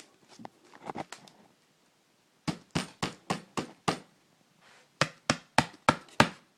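Sharp taps or knocks in two quick runs: six about three a second, then after a short pause five more, with fainter scattered clicks before them.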